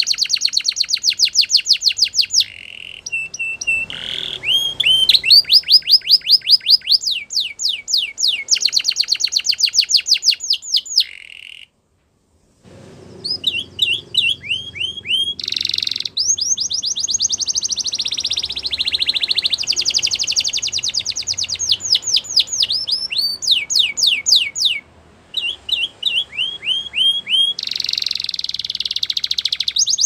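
Spanish Timbrado canary singing: long runs of rapid trills, each made of quick repeated falling notes, with the speed and pitch changing from one run to the next. The song cuts out briefly about twelve seconds in and dips again near twenty-five seconds.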